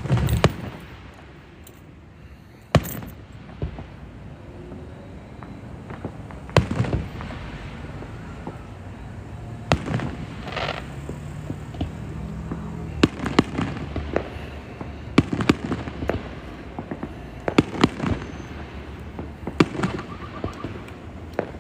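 Aerial fireworks going off in a display, with sharp bangs every few seconds followed by crackling.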